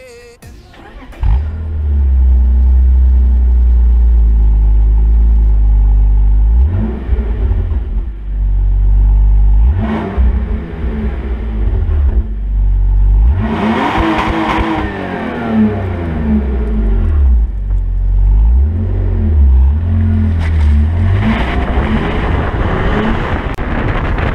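BMW E46 328i's 2.8-litre straight-six running through its exhaust, heard close at the rear of the car. The engine comes in sharply about a second in and idles steadily. It is then blipped several times, with a longer, higher rev about halfway through, each rev rising and falling back to idle.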